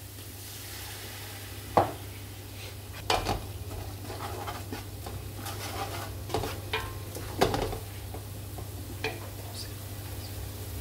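Wooden spatula stirring and scraping spiced fried onions in a large aluminium pot, knocking against the pot's side several times, while the mixture sizzles lightly after a splash of water.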